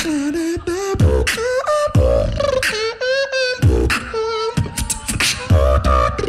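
Solo beatboxing through a microphone and PA: deep bass kick sounds recurring every second or so, sharp click and hi-hat sounds, and a hummed melody line over them.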